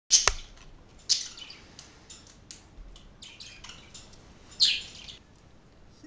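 Pet budgerigars chirping in short, high calls, with a few louder calls near the start, about a second in, and again about four and a half seconds in.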